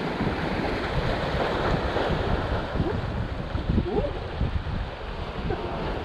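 Sea waves washing against the shoreline rocks, with wind buffeting the microphone in uneven gusts.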